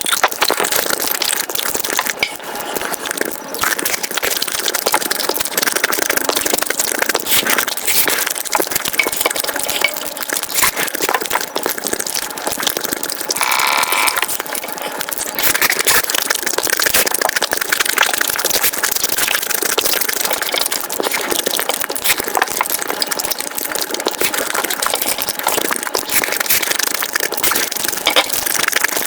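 Close-miked eating sounds sped up about five times, chewing and crunching running together into a dense, rapid clicking, with a brief higher tone about halfway through.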